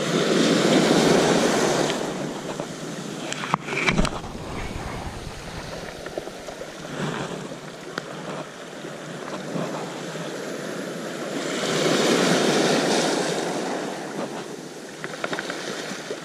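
Small waves breaking and washing up over a pebble beach, with two bigger surges about ten seconds apart and smaller washes between. A cluster of sharp clicks and knocks near four seconds in.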